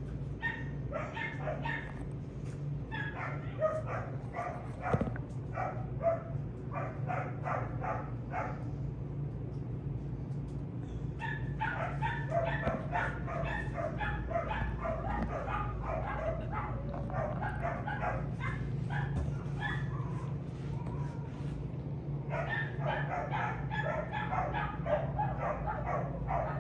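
Young puppy whining and yipping in three long bouts of rapid short cries, several a second: a pup pestering to be let outside to relieve himself. A steady low hum runs underneath.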